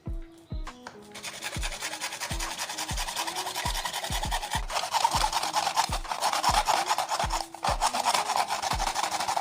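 Continuous harsh rasping scrape of a tool abrading a surface, starting about a second in and growing louder, over background music with a steady low beat.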